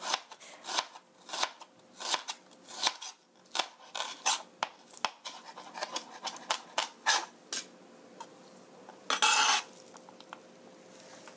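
Chef's knife chopping sliced onion on a plastic cutting board, in irregular sharp knocks about two a second that stop about seven and a half seconds in. About nine seconds in comes a short, louder scrape, the blade sweeping the chopped onion together on the board.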